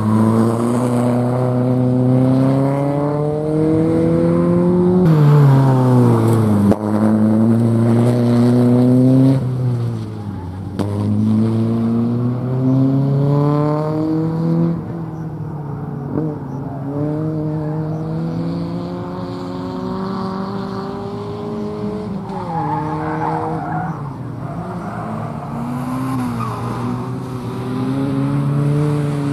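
A race car's engine driven hard round a short circuit stage, its revs climbing again and again and dropping sharply at lifts and gear changes. It is loudest in the first third as the car passes close, then fainter, and grows louder again near the end as it comes back.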